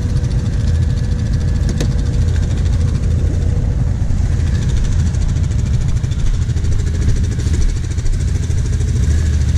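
ATV engines running at low revs, the nearest one idling steadily close by, while other quads crawl through mud. A short click about two seconds in.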